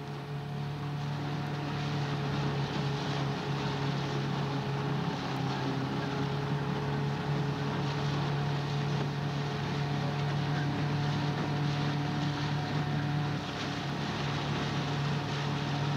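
Coaching launch's motor running at a steady speed, an even hum under a steady rushing hiss.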